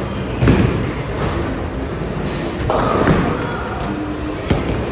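Bowling alley noise: a bowling ball rolling down the lane under a steady din, with a heavy thud about half a second in and a sharp knock near the end.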